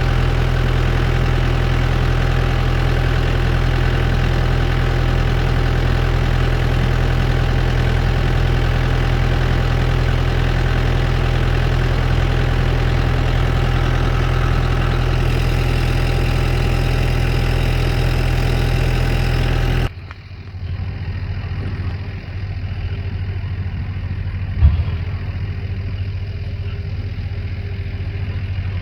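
Case IH Puma tractor running steadily under load while baling hay. About two-thirds of the way through the sound cuts abruptly to a quieter, lower engine sound, with a single thump a few seconds later.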